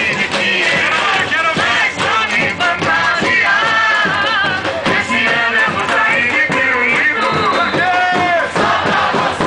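Carnival marchinha from a street bloco: an amplified singer over drums, with the crowd singing along.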